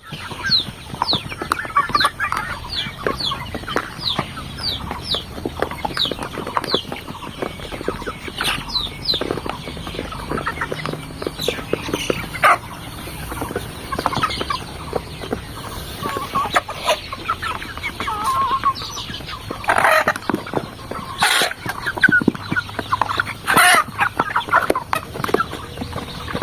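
A flock of Sonali chickens clucking, with high falling peeps about twice a second in the first several seconds and a few louder calls in the last third.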